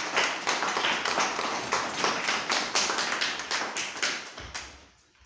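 Audience clapping, a dense patter of many hands, dying away about four and a half seconds in.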